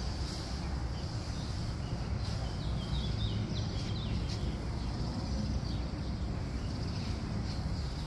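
Outdoor ambience: wind rumbling on the phone microphone, with a quick series of short bird chirps about two to four seconds in.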